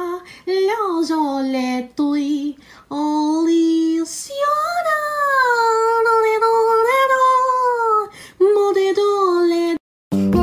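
A high voice singing a slow melody of long, gliding held notes with no clear accompaniment. Near the end the singing breaks off and plucked guitar music begins.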